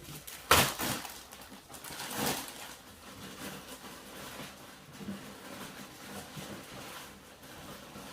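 Plastic packaging crackling and rustling as a large plastic-wrapped toy playset is handled. A sharp crackle comes about half a second in and a softer one around two seconds, then faint scattered rustles.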